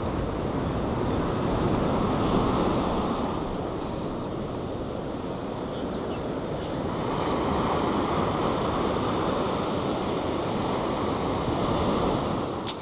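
Ocean surf washing up the beach, mixed with wind buffeting the microphone. The rush swells about two seconds in and again around seven seconds.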